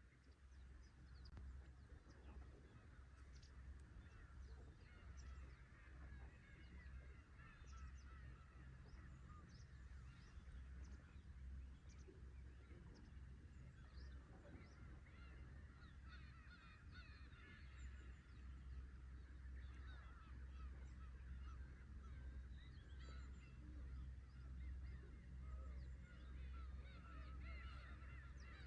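A flock of black-tailed gulls calling, many short mewing calls overlapping without pause, over a low steady rumble of waves.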